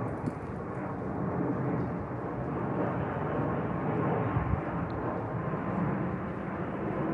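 Steady low rumble of distant engine noise over the street's ambience, holding evenly throughout.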